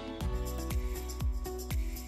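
Background music: held melodic tones over a beat of low drum hits, about two a second, that comes in just after the start.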